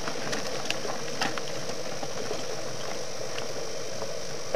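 Steady hiss with a few faint clicks and ticks scattered through it.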